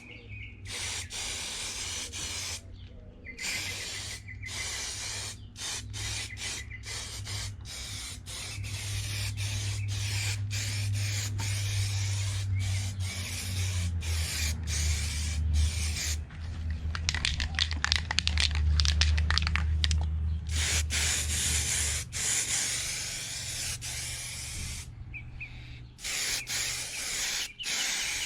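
Spray paint hissing onto a minibike frame in repeated passes, each a few seconds long with short breaks between them, while the primer goes on. A low steady hum runs underneath, strongest in the middle stretch.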